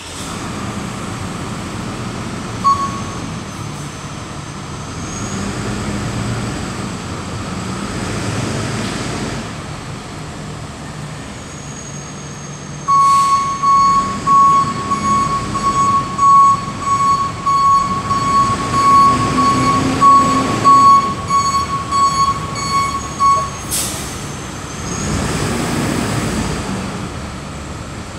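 Flatbed tow truck engine running, with its reversing alarm beeping steadily for about ten seconds in the middle as the truck backs up.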